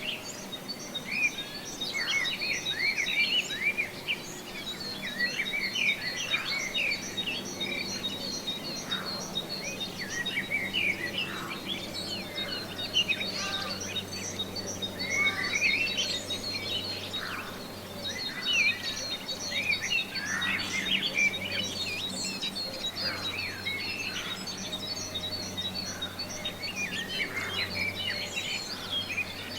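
Countryside daytime ambience: many birds chirping and singing in short, sliding calls over a steady chorus of rapidly pulsing crickets.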